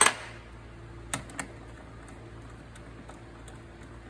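Sharp clicks and taps of hand tools and small bolts being handled while the wiper motor's mounting bolts are taken out. A loud click comes right at the start and two smaller ones just over a second in, over a steady low hum.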